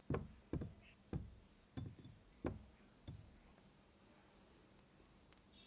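Kinetic sand being cut with a knife: about six soft knocks, one every half second or so, as the blade presses through the sand onto the surface below. The knocks fall within the first three seconds.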